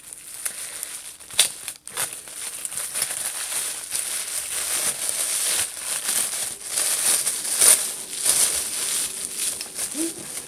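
Red tissue paper crinkling and crackling as a small wrapped item is unwrapped by hand, with a few sharper snaps among the steady crinkle.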